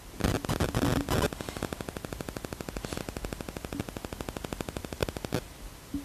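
Rapid, even crackling of about fifteen clicks a second, like static. It is rougher and louder in the first second and stops suddenly about five and a half seconds in.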